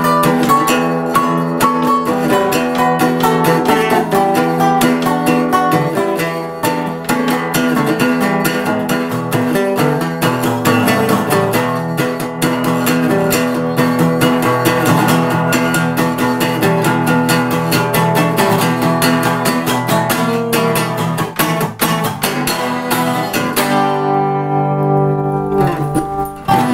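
An acoustic guitar and a resonator guitar played together, a busy run of picked and strummed notes. Near the end a final chord rings out and fades.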